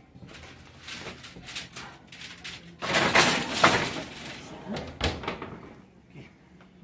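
A foil-covered baking pan pushed onto a metal oven rack, clattering loudly for about a second, then the oven door shut with a sharp bang about five seconds in.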